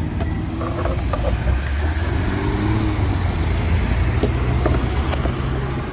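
A motor vehicle's engine running with a steady low rumble, with a few faint light clicks over it.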